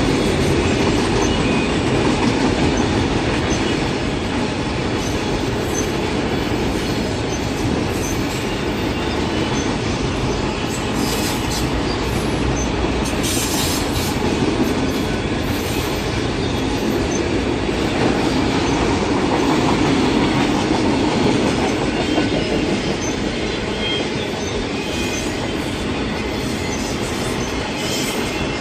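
Train rolling past, a steady rumble of steel wheels on rail with faint, short high-pitched wheel squeals now and then.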